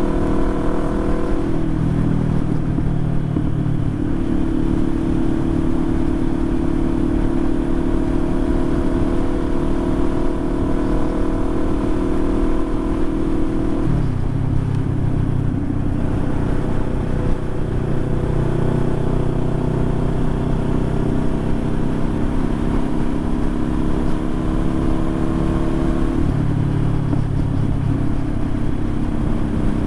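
Motorcycle engine running steadily under way, its note changing pitch abruptly a few times, as at gear changes or throttle changes.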